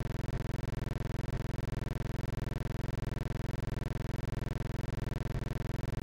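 Steady low electrical buzz with many overtones, unchanging throughout, with a faint tick about once a second.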